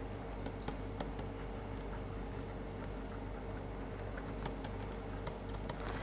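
Stylus scratching and tapping lightly on a writing tablet as a short phrase is handwritten, a few faint clicks over a steady low electrical hum.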